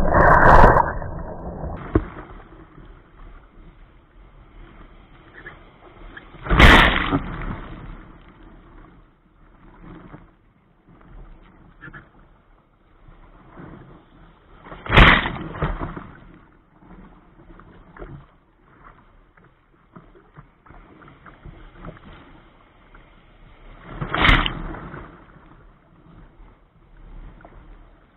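Waves breaking over the bow of a sea kayak in surf: four loud crashes of white water, spaced about eight or nine seconds apart, with water sloshing and washing against the hull in between.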